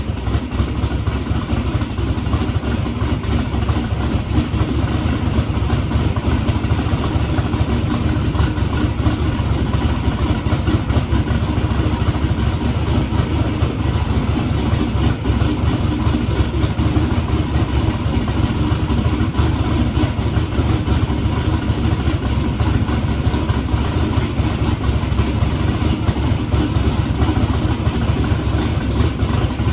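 Twin-turbo small-block Ford V8 idling steadily, loud and choppy, with the turbos running without downpipes.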